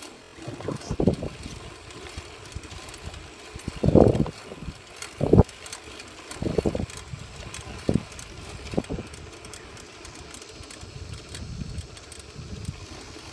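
Riding noise from a bicycle on a paved path, picked up by a handheld phone microphone: irregular wind buffets and handling knocks, with the loudest thumps about four and five seconds in.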